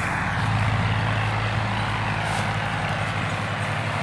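Diesel tractor engines running hard under heavy load with a steady, fast chug, as two tractors pull a trolley piled high with sugarcane.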